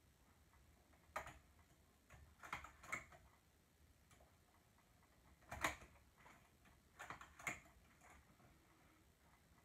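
Faint, irregular metallic clicks of a three-prong transfer tool and latch needles on a knitting machine's needle bed as stitches are lifted off and moved to other needles. About six clicks in all, the loudest a little past halfway.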